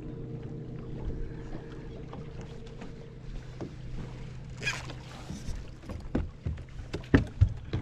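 A small electric motor on a bass boat hums steadily, then fades; about four and a half seconds in comes a brief splash-like rush, followed by a series of sharp knocks and clatters on the boat as the fish is handled and stowed.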